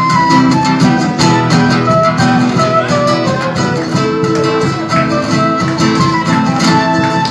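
A folk ensemble playing live: strummed acoustic guitars keep a steady rhythm under a melody line that slides between notes.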